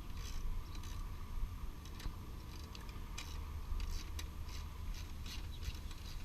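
3/8-inch drive ratchet clicking in quick irregular runs as it loosens a scooter's exhaust mounting bolts, over a low steady rumble.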